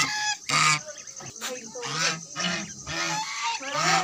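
White domestic goose honking repeatedly, about seven short calls in four seconds, with higher peeping calls from ducklings mixed in.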